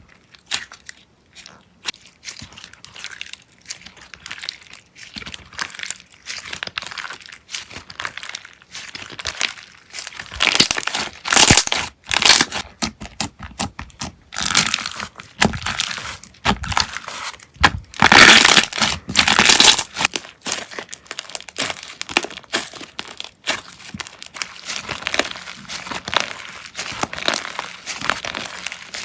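Slime being worked by hand, giving dense, irregular crackling and crinkling, loudest in the middle stretch from about ten to twenty seconds in.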